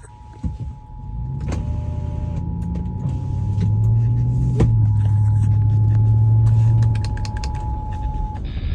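Emergency Alert System two-tone attention signal: a steady dual tone held for about eight seconds, then cut off just before the end. It marks the start of a severe thunderstorm warning. Underneath runs a low rumble with scattered crackles.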